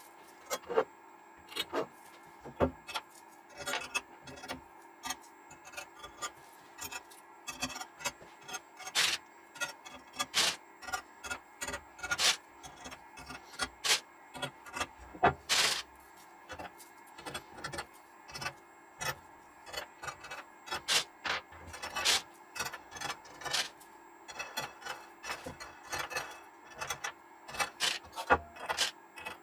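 Small steel fasteners being sorted out of a plastic parts box and handled against a steel linear rail on aluminium extrusion: irregular light clicks, clinks and rubs, with a few louder knocks.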